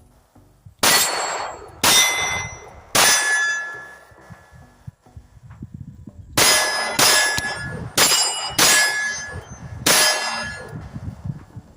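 Eight 9mm shots from a Glock 45 pistol fitted with a Ramjet compensator: three about a second apart, then after a pause five more. Each shot is followed by a metallic ring that fades out.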